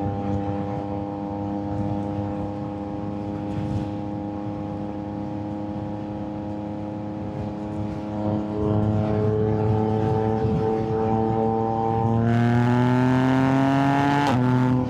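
Yamaha MT-09's inline three-cylinder engine running under way, heard from the rider's position: steady at first, then rising in pitch and getting louder as it accelerates from about eight seconds in, pulling hard near the end, and dropping suddenly in pitch just before the end as it shifts up a gear.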